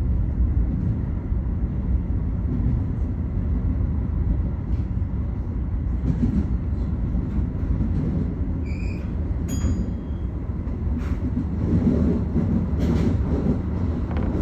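Keio Line commuter train running at speed, heard from inside the front car: a steady low rumble with scattered wheel clicks. A couple of brief high tones sound near nine and ten seconds in.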